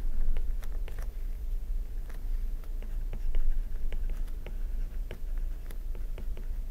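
Handwriting: a pen or stylus making light, irregular ticks and scratches as letters are written, over a low steady hum.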